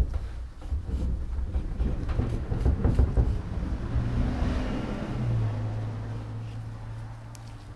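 Dual-action polisher running with cutting compound on a wet-sanded car hood. Its motor hum wavers while it works the panel, then settles into a steady pitch and eases off, stopping at the very end.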